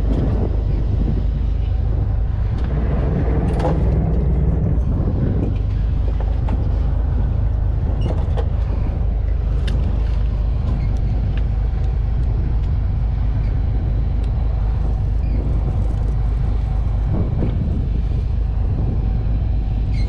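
Fishing boat's engine running steadily underway, a constant low drone under a wash of wind and water noise.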